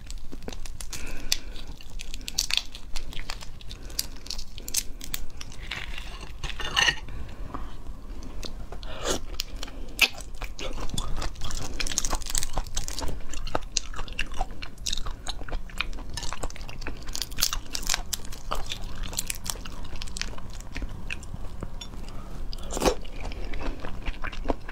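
Shells of Argentine red shrimp cracking and crackling as they are peeled by hand, mixed with chewing of the shrimp meat: many irregular sharp clicks and crunches.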